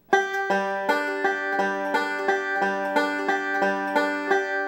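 Five-string banjo played fingerstyle in a slow, even forward roll starting on the thumb (thumb, index, middle, repeating), at about three notes a second.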